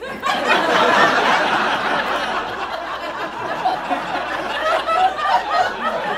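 An audience laughing at a joke: the laughter swells about a second in, then slowly dies down, with scattered single laughs near the end.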